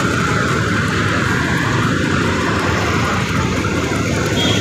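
Steady rushing wind noise on the microphone of a camera moving along a road, mixed with passing road traffic.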